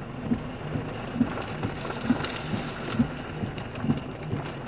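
Heavy rain falling on a car's roof and windows, heard from inside the cabin: a steady hiss with many irregular individual hits.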